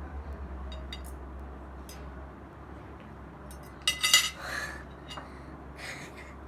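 Cutlery and dishes clinking on a table during a meal: scattered light clicks, then a louder burst of ringing clinks about four seconds in, over a low steady hum.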